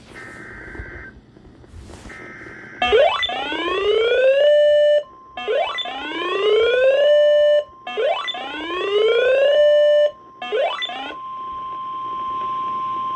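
Emergency Alert System broadcast alert: two short bursts of the screeching SAME header data. Then a siren-like alert tone of rising whoops, each about a second and a half long (three full and a fourth cut short), with the steady NOAA Weather Radio warning alarm tone coming in under them about five seconds in and carrying on alone to the end.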